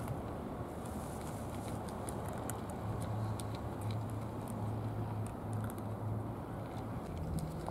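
Cats eating from plastic bowls: scattered small clicks of chewing food, over a steady low outdoor rumble.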